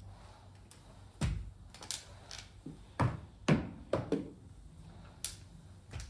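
Flat spray mop being worked over a laminate floor: its swivelling head and handle knock and clack about ten times at irregular intervals, with the two loudest thuds about halfway through.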